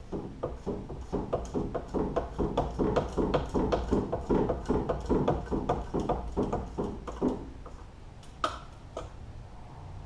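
Rapid, repeated metallic clicking and scraping, about four strokes a second, as a spin-on hydraulic filter is worked by hand onto its mount on a New Holland L230 skid steer. The filter is not spinning on smoothly. One sharp click comes near the end.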